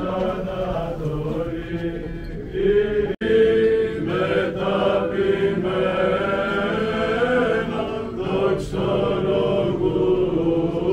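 A group of Orthodox monks chanting together in men's voices, holding long sung notes. The chant breaks off for a split second about three seconds in.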